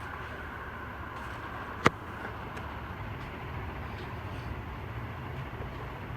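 48-inch TAT industrial ceiling fan with a UFO-style motor and steel blades running on high speed: a steady low hum with a rush of moving air. One sharp click about two seconds in.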